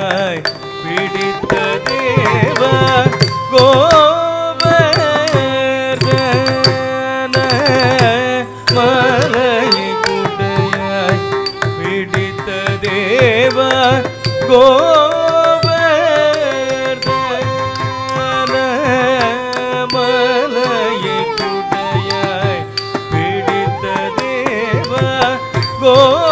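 Carnatic music for Bharatanatyam: a singer with melodic accompaniment and sharp drum strokes keeping the rhythm.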